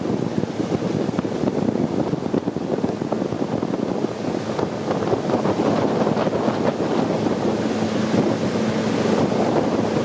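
A long-tail boat under way, its engine running steadily, with wind buffeting the microphone and water rushing along the hull.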